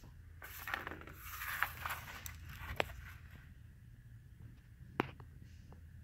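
Faint rustling and scraping handling noise for the first few seconds, with two sharp clicks about three and five seconds in, over a low steady hum.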